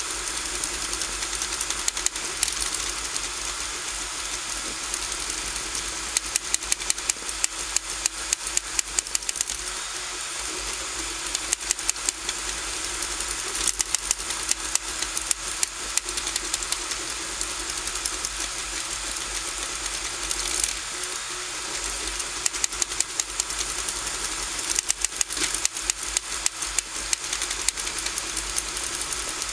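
RigidBot 3D printer printing, its stepper motors whining steadily as the print head traces a circular outline, with runs of rapid ticks that come and go every few seconds.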